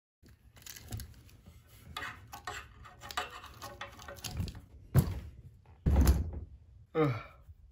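Plush toys handled and rubbed against toy cage bars, rustling with small clicks, then several loud thumps as plush toys are thrown down onto a heap on the floor. A short sound falling in pitch, like a brief cry, comes near the end.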